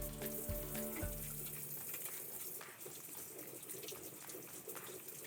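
Kitchen tap running into a sink, an even rushing hiss with small clinks of items being handled. Background music plays under it for the first second and a half, then stops.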